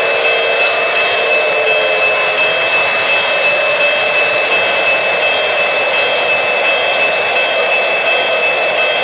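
Lionel O-gauge Pennsylvania Railroad S2 steam-turbine locomotive running past at close range: a steady rushing whine with a high held tone, the model's turbine sound mixed with the running of the engine on the track.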